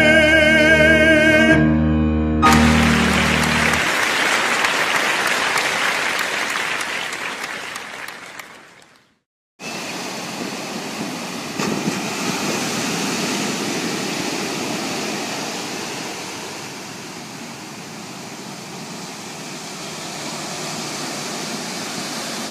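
A sung melody with vibrato ends about a second and a half in, giving way to the steady wash of ocean surf. The surf fades out to a brief silence around nine seconds in, then resumes as waves breaking and washing up a beach.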